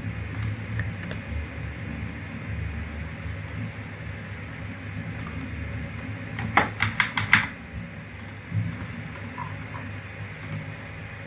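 Clicking of a computer mouse and keyboard at a desk: scattered single clicks, with a quick run of about six clicks a little past the middle. A low steady hum runs underneath.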